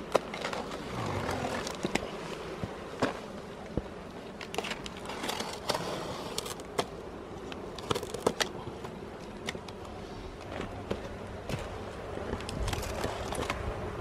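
Utility knife cutting and scraping through the tape and cardboard of a bee nuc box: irregular short scrapes and clicks.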